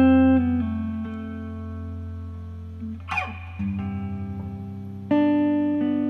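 Instrumental guitar music: plucked chords ring out and slowly decay, struck afresh near the start, about three and a half seconds in and again about five seconds in. There is a brief scraping sweep across the strings just after three seconds.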